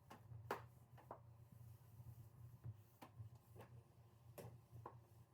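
Near silence: faint room tone with a low steady hum and soft, irregular ticks about once a second.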